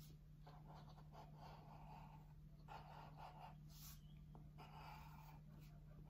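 Faint scratching of a white pen drawing on black paper, in a series of short strokes with brief pauses, over a steady low hum.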